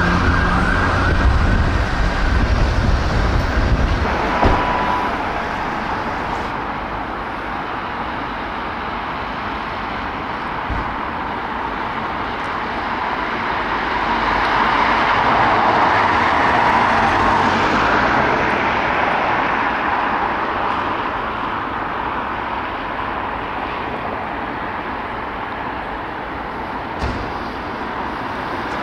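A Renault Master ambulance's siren wailing over its engine as it pulls away, cut off abruptly about four seconds in. Then steady street traffic noise, swelling midway as a vehicle passes.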